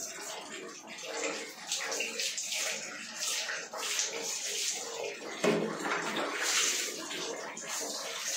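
Water poured from a plastic mug over a wet golden retriever's back, splashing through its coat and onto the tiled floor in repeated pours.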